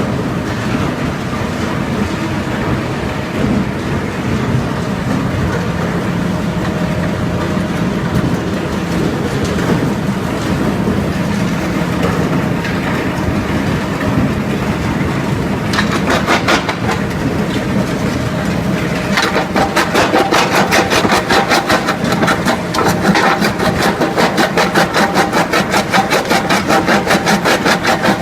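Industrial powder-grinding mill machinery running with a steady, loud mechanical hum and rush. About two-thirds of the way in, a fast, even pulsing of roughly two to three beats a second sets in over it.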